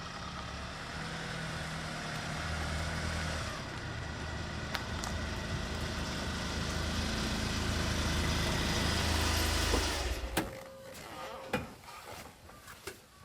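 A motor vehicle's engine running steadily, with a low hum under an even rushing noise, cutting off abruptly about ten seconds in. A few faint clicks follow.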